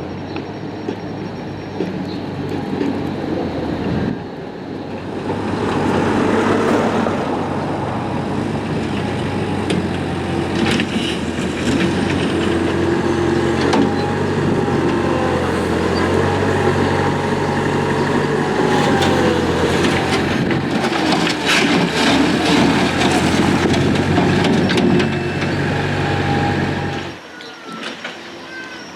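Heavy diesel roadworks machinery running steadily, with clanking and knocks over the engine, until the engine sound drops away near the end.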